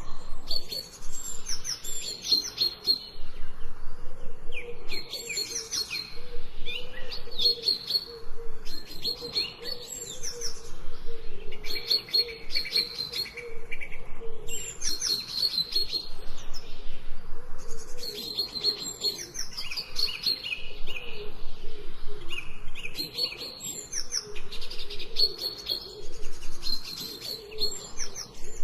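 Songbirds chirping in short, high, repeated phrases every second or two, with a fainter wavering lower call underneath.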